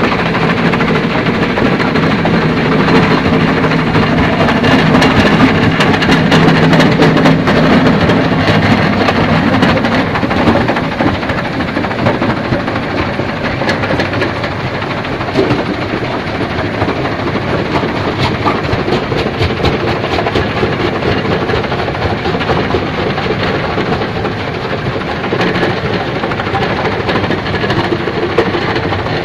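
Stone crusher running as it breaks iron ore: a steady machine drone, louder for the first ten seconds or so, under a continuous clatter and knocking of rock.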